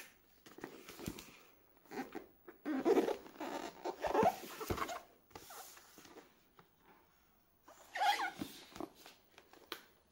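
A tape-wrapped cardboard shipping box being handled and turned over on a countertop: irregular scraping and rustling of cardboard and packing tape in several spells, with a few light knocks.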